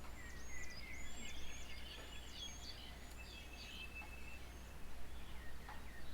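Songbirds singing and calling: a busy run of varied whistled and chattering phrases, with notes jumping and sliding in pitch, for the first four seconds or so, then a few scattered calls.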